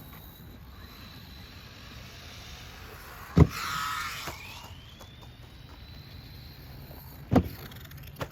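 Small electric RC monster trucks on a jump run: two sharp hard thuds, about three and a half seconds in and again near the end, as a truck lands or crashes. After the first thud an electric motor whines and rises in pitch as the truck speeds off.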